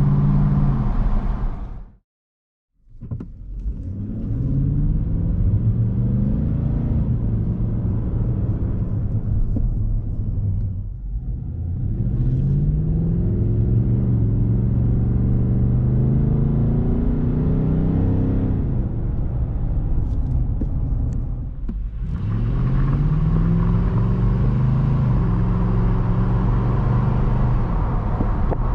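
Nissan Titan 5.6-litre V8 and its exhaust heard from inside the cab, accelerating: the engine note climbs in pitch, falls back at each upshift and climbs again, over several separate runs. A brief silent break comes about two seconds in.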